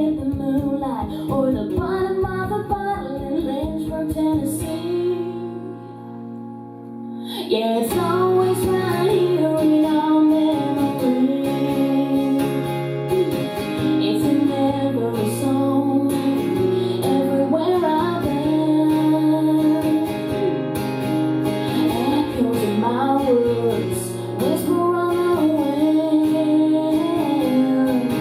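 A woman singing live with acoustic guitar accompaniment. About five seconds in, the music drops back to a quieter held chord, then the voice and guitar come back in full about two seconds later.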